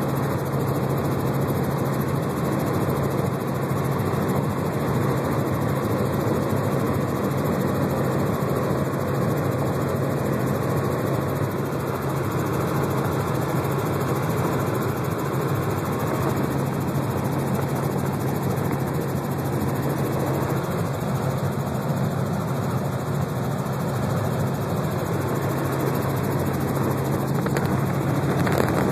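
Helicopter in level flight heard from inside the cabin: engine and rotor running with a steady low hum under a wide even roar.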